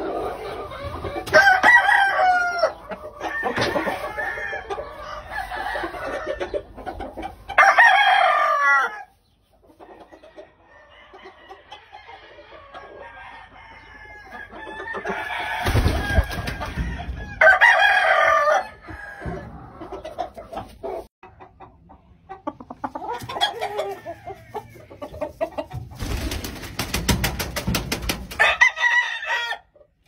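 Gamecock roosters crowing four times, about ten seconds apart, with softer clucking between the crows. Short noisy flurries come just before two of the crows.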